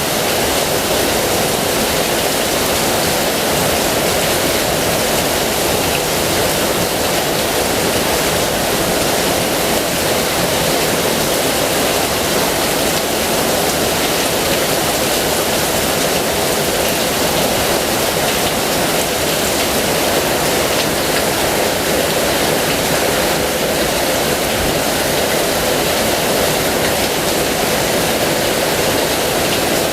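Heavy rain falling, a steady, even rush.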